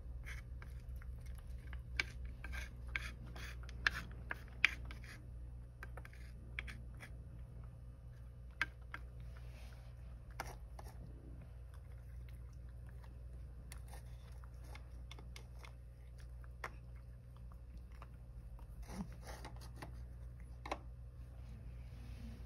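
A cat crunching dry kibble: a quick run of sharp crunches in the first few seconds, then scattered single crunches. A steady low hum sits underneath.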